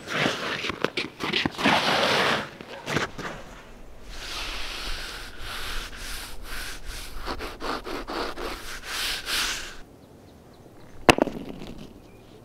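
Long scraping strokes across the ice of a backyard rink: a rough scrape in the first two seconds, then one long steady scrape of about six seconds, with a single sharp click near the end.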